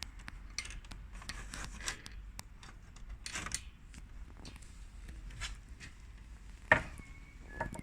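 Toy pieces being handled and fitted together: scattered small clicks and scrapes, with one sharp click near the end.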